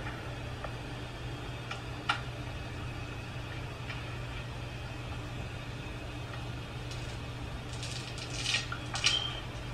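Phone handling noise: a few light clicks about two seconds in and a cluster of rustles and clicks near the end, over a steady low hum.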